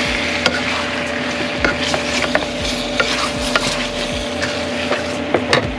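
Wooden spatula stirring spiced lamb rib pieces sizzling in an aluminium pot, with many short scrapes and knocks against the pot. A steady hum runs underneath.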